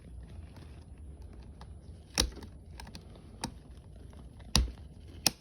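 Sharp small clicks and taps of plastic and metal as the battery connector on a laptop's mainboard is pried at to disconnect it, four louder clicks standing out over fainter ticking in the second half.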